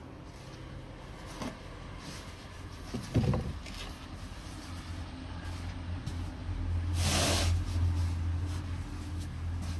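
Off-camera handling of heavy natural stone blocks: a single dull knock about three seconds in and a short rough scrape about seven seconds in, over a steady low hum that swells in the second half.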